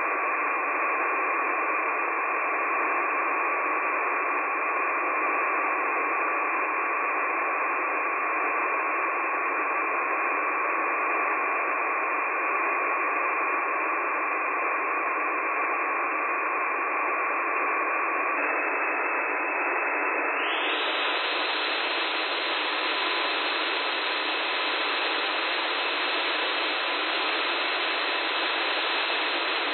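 CCW Sentinel 4 SDR receiver's audio output: steady static hiss with two steady whistle tones from received signals. About two-thirds of the way through the lower tone drops out and the hiss turns brighter, as if the receiver's filter were widened.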